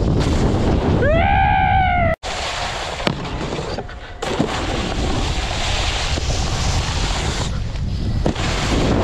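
Wind rushing over the snowboarder's camera microphone and the board sliding over snow, loud and steady throughout. About a second in comes a short, high, wavering pitched call, and the sound cuts out for an instant about two seconds in.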